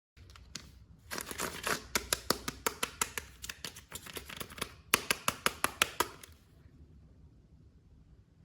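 Action-figure packaging being opened by hand: plastic crinkling and tearing with a quick run of sharp clicks, about three a second, that stops about six seconds in.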